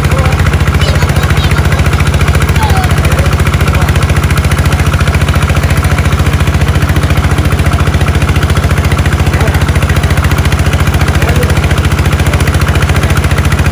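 Small engine driving a water pump to drain a pond, running steadily at a fast, even beat.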